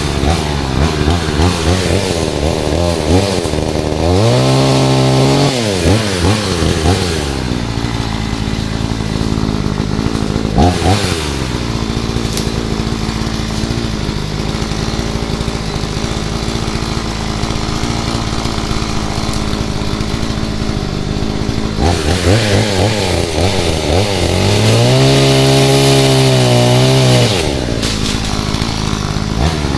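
Cheap two-stroke gas chainsaw running, revved up high twice, about four seconds in and again around twenty-four seconds, each time dropping back to a steadier, lower speed in between.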